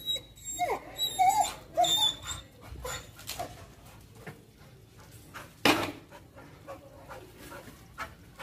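Pit bull whining in short, high, wavering cries for the first two seconds or so, excited by a monkey it can see above it. This is followed by scattered short sharp sounds and one loud bark just before six seconds in.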